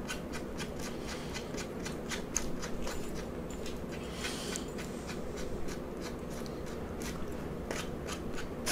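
Close-miked chewing of crispy shoestring fries: a steady run of small, soft, wet clicks and crunches.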